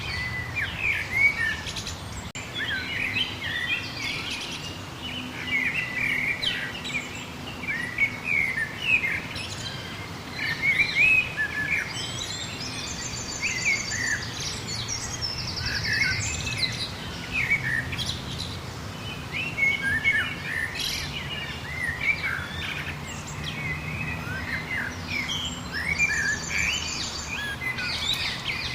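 A dense chorus of many songbirds chirping and calling over each other, steady and unbroken. A fast, high, rapidly repeated trill stands out twice, about halfway through and again near the end. A faint low hum runs underneath.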